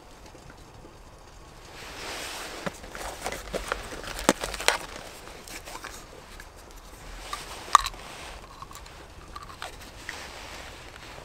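Crunching and rustling with a few sharp snaps, busiest from about two to five seconds in and again with one sharp snap near eight seconds.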